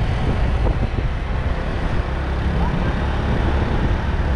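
Motorcycle being ridden along a road: steady engine and road noise, with wind buffeting the microphone.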